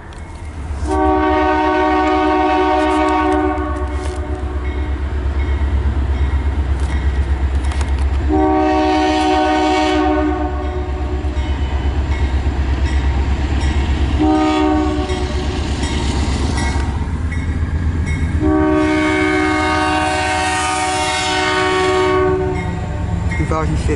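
Freight locomotive's multi-chime air horn sounding the grade-crossing pattern, long, long, short, long, over the steady low rumble of the train passing close.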